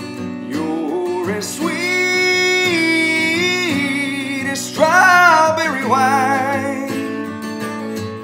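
Acoustic guitar strumming a slow country ballad while a man sings wordless, drawn-out vocal runs over it, holding notes with a waver, from about half a second in until about six seconds in.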